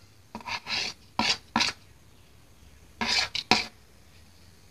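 A metal spoon scrapes ground spices off a plate into a mixing bowl. There are about four short scrapes in the first second and a half, then two more about three seconds in.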